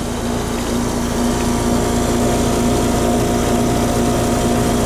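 Heat pump outdoor unit running: a steady mechanical hum with a couple of constant tones over an even whir.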